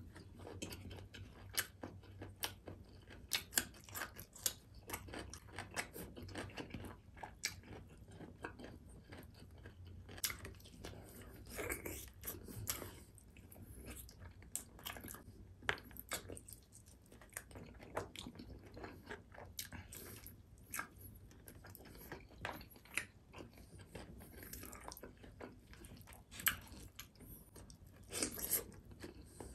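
Close-miked chewing of mouthfuls of rice and beef rendang eaten by hand, with a steady run of sharp wet mouth clicks and a few louder bursts.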